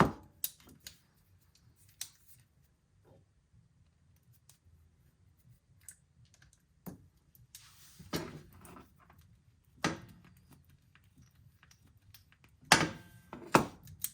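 Hand grease gun being pumped into the grease zerks of new sway bar links: scattered clicks and clacks with quiet stretches between, a louder cluster of clacks near the end.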